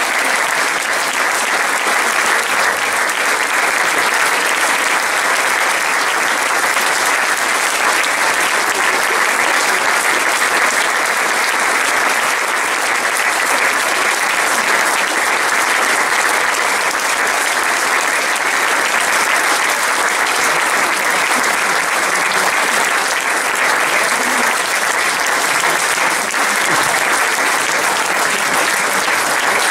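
Audience applauding steadily after a percussion ensemble's performance, a dense, even clapping from a full hall.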